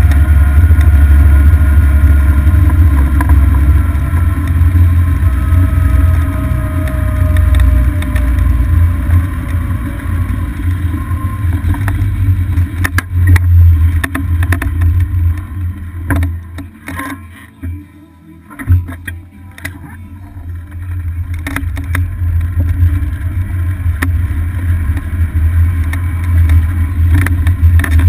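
Steady wind buffeting and rumble on a GoPro mounted on a moving golf cart, mixed with the cart's running noise and scattered clicks and rattles. A faint whine slowly falls in pitch over the first ten seconds. The rumble eases for a few seconds a little past the middle.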